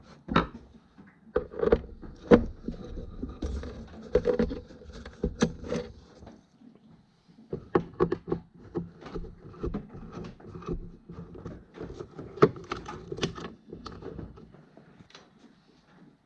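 Phillips screwdriver backing out the small screws on metal offset clips on the back of a wooden picture frame: scattered metal clicks, scrapes and knocks as the screws turn and the clips are swung aside, with a pause of about a second and a half midway.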